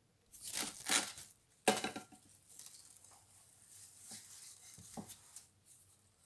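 Plastic cling film pulled off its roll with loud ripping rustles in the first two seconds, a sharp tear about a second and a half in, then softer crinkling as it is stretched over a glass bowl of dough.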